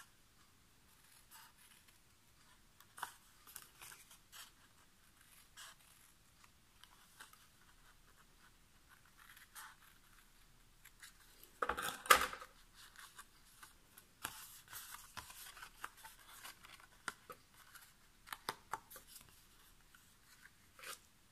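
Small scissors snipping short slits into cardstock, a series of separate snips, with one louder burst of noise about halfway through.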